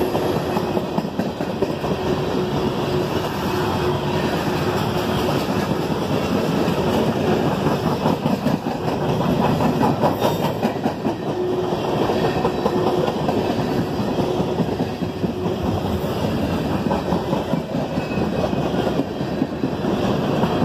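Freight cars of a CSX train (tank cars, covered hoppers and boxcars) rolling past, their steel wheels rumbling and clicking rapidly on the rails without a break.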